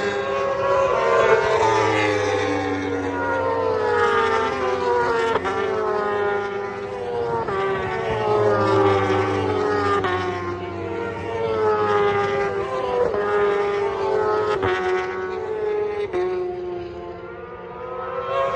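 Several 1000 cc superstock racing motorcycles at full throttle passing one after another, their overlapping engine notes sliding up and down in pitch as they accelerate and change gear. The sound dips briefly near the end between bikes.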